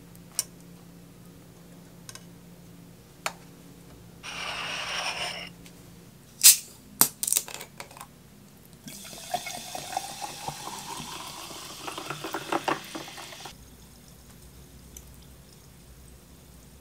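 Sparkling water poured from a plastic bottle into a glass for about four seconds, the pitch of the pour rising steadily as the glass fills. Before it come a short hiss and a few sharp clicks as the bottle is opened, and near the start single light clicks of metal tongs on a ceramic plate.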